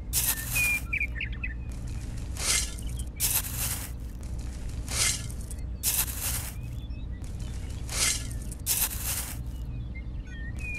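A small metal toy shovel scraping into dry sand and cement powder and tipping it into a miniature mixer drum: short gritty hisses every second or so. Birds chirp faintly now and then over a steady low hum.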